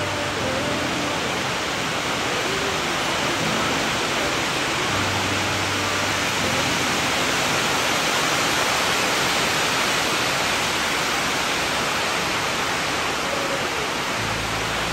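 A steady, loud rushing hiss of even noise, with faint low musical notes beneath it at times.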